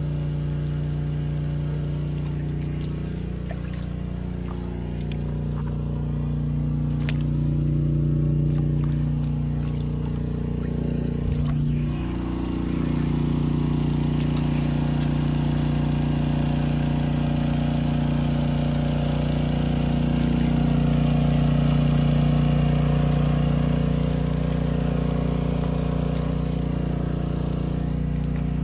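An engine running steadily with a low hum, its speed drifting up and down a little, with a short knock and scuffle about halfway through.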